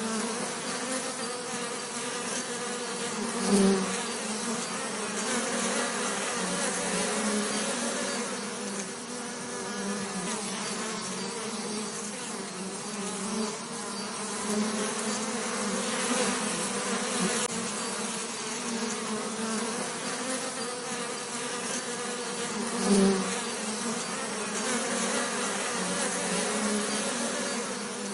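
Bees buzzing continuously, a dense steady hum with a close bee passing louder twice, about three and a half seconds in and again near the end.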